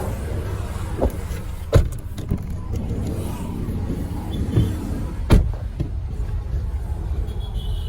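Steady low rumble of a car or road traffic, broken by a few sharp knocks, the loudest about five seconds in.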